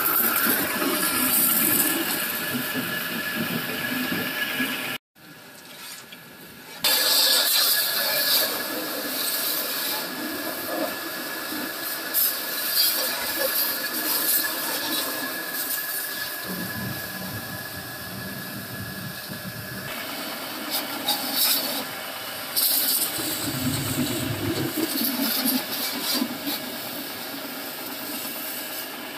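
Electric-motor-driven pressure-washer pump running with a steady whine while its water jet hisses and splashes against a tractor. The sound cuts out about five seconds in and comes back fully about two seconds later.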